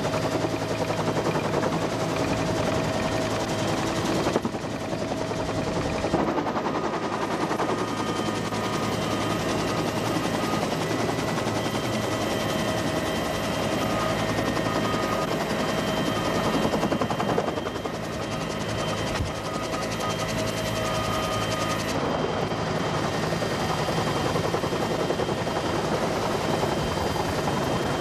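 Huey-type helicopter running: a steady fast beat of rotor blade slap over a constant turbine whine. The sound shifts abruptly a few times.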